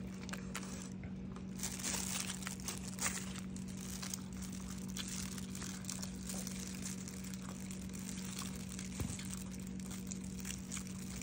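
Paper food wrapper crinkling and rustling as fried chicken is handled on it, with scattered small crackles, busiest about two seconds in. A steady low hum runs underneath.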